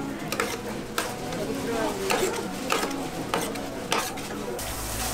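Metal scraper scraping and tapping on a flat-top griddle over sizzling egg-and-vegetable toast batter, a sharp stroke about every half second. Near the end a louder, steady sizzling hiss takes over.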